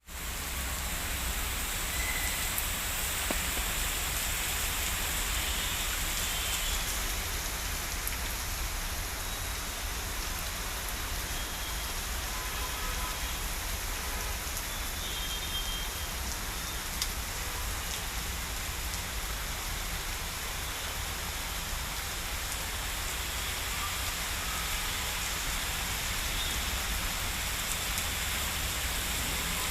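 Steady rain falling on plants and surfaces, an even hiss with scattered drop ticks and a low rumble.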